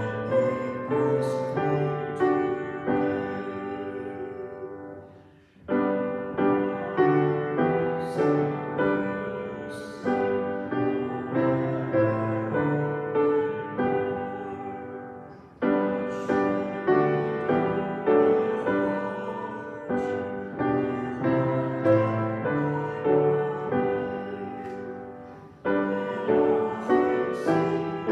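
Piano playing a hymn tune in full chords, notes struck and dying away, in phrases about ten seconds long with a short break between them.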